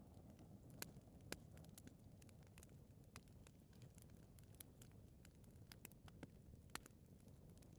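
Gas fireplace flames burning faintly: a low, steady rumble with scattered sharp ticks and pops, about a dozen, the strongest about a second in.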